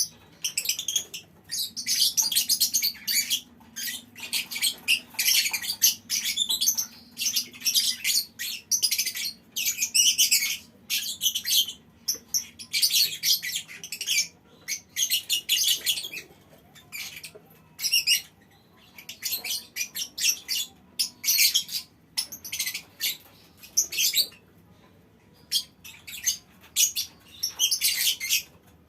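Colony of lovebirds chattering: rapid runs of shrill, high-pitched calls, some of them long continuous strings, broken by short pauses.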